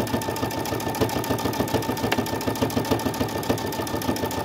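Brother Innov-is V5 sewing machine stitching steadily at speed: a fast, even rhythm of needle strokes over a constant motor whine.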